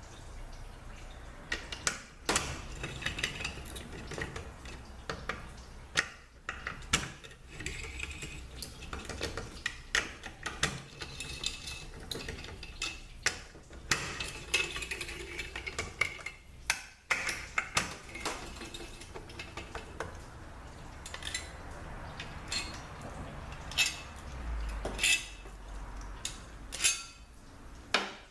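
A ratchet wrench backs bolts out of an automatic transaxle case: bursts of ratchet clicking mixed with sharp metallic clinks and knocks of the tool, bolts and parts.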